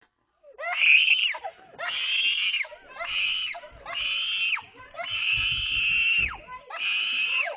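Six long, shrill screams in a row, each about half a second to a second and a half, with short gaps between them. Each cry glides up at its onset, holds high, and drops off at its end.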